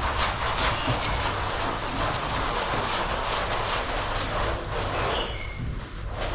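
Wet, steady scrubbing and water noise of a muddy rug being washed by hand, dipping briefly near the end.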